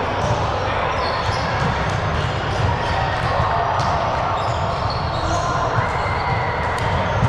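Indoor court game ambience in a large, echoing gym: a steady din with scattered ball thuds and short, high sneaker squeaks on the floor.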